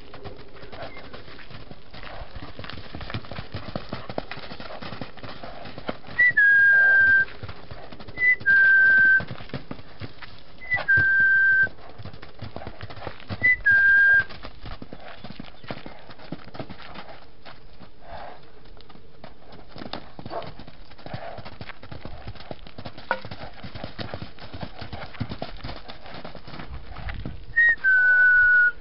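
Someone whistling five loud single notes, each a quick upward flick then a held, slightly falling tone about a second long, four of them every two to three seconds and the last after a long pause. Underneath, the soft, irregular hoofbeats of a horse cantering and trotting on sand.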